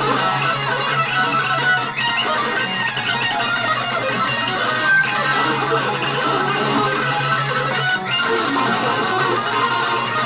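Electric guitar playing a heavy-metal song.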